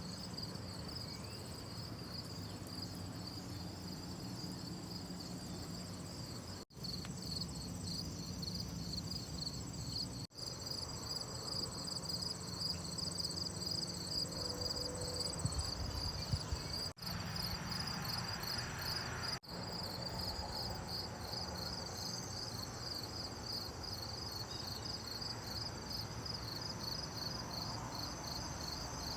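Insects chirping in a steady, even high-pitched pulse over a low background hum. The sound drops out very briefly four times.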